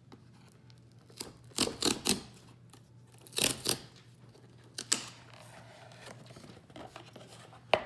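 A cardboard mailer box being opened by hand: several short bursts of scraping and tearing cardboard, then softer rustling as the lid is lifted, and a click near the end.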